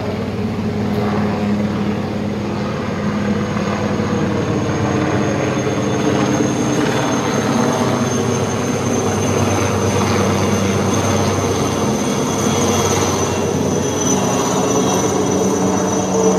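Helicopter flying overhead: a steady rotor and engine sound with a high whine over it.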